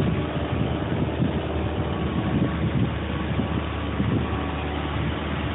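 A car on the move: a steady drone of engine and road noise with uneven low buffeting.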